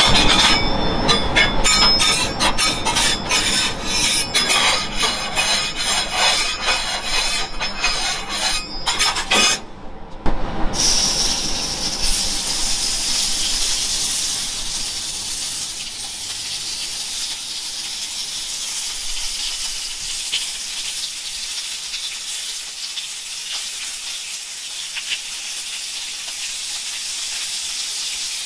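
Oil popping and crackling on a hot steel teppanyaki griddle for about the first ten seconds. Then, after a brief break, a steady high sizzle of thin pork belly slices frying on the griddle as more slices are laid down.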